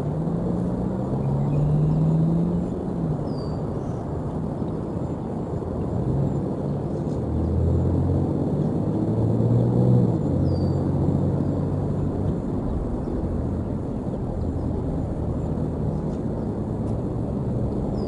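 Low rumble of passing motor traffic, its engine hum swelling twice: briefly about a second in, then more strongly from about 6 to 11 seconds in. A few faint, short, high bird chirps sound over it.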